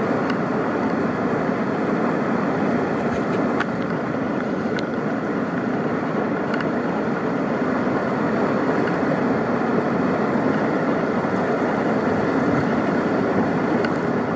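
Whitewater of a large river rapid in high flood, about 50,000 cfs, rushing steadily through a big standing wave.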